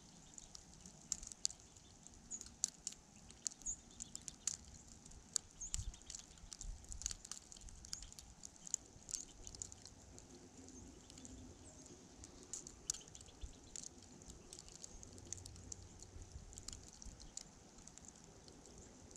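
Faint, irregular ticking and pattering of frozen precipitation striking nearby surfaces during a winter storm, several light ticks a second, over a soft low rumble of wind.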